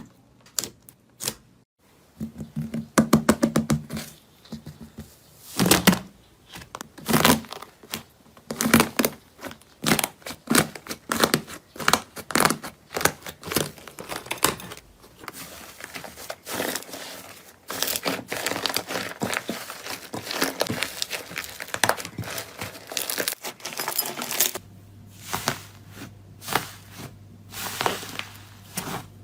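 Slime being handled: squeezed, pressed and pulled apart, giving a dense, irregular run of sticky clicks, pops and crackles.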